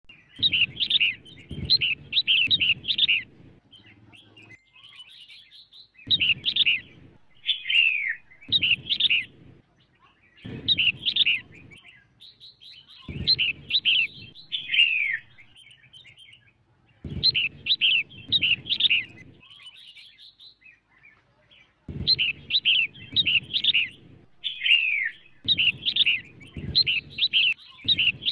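Female red-whiskered bulbul singing. It gives short phrases of quick, warbling chirps, repeated every few seconds with brief pauses between them.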